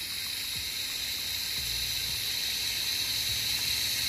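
Water from a garden hose jetting out of an open float valve into a plastic bucket reservoir, a steady hiss and splash as the bucket fills. The float has not yet risen far enough to shut the valve off.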